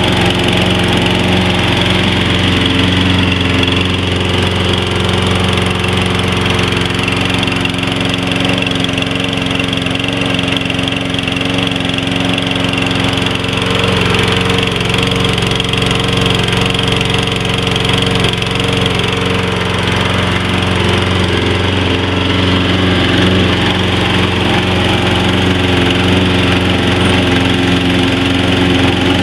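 A Toro Personal Pace walk-behind mower's 190cc Briggs & Stratton engine runs steadily at an even speed, just started on the first pull. Its carburetor has recently been cleaned of mold.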